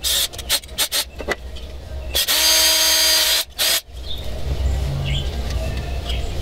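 Cordless drill running in one steady burst of about a second, then a second short burst, with a few sharp handling clicks before it.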